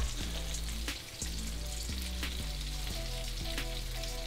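Floured, egg-dipped meat frying in hot oil in a skillet: a steady sizzle with scattered crackles, briefly quieter about a second in. Low background music runs underneath.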